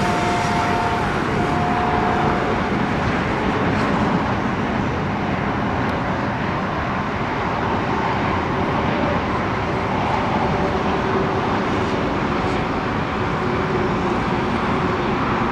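Radio-controlled racing boats running at full speed around the course, a steady motor sound with faint shifting tones over a noise of spray and water.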